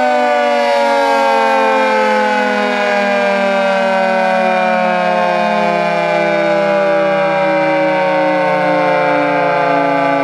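Federal Signal 2T22A dual-tone outdoor warning siren sounding loudly. Its two-note chord slides slowly and steadily down in pitch as the rotors wind down.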